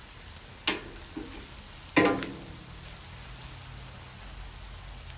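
Steady sizzle of food frying on a Blackstone flat-top griddle. Two sharp clacks cut through it, about two-thirds of a second in and again about two seconds in. The second is louder and rings briefly.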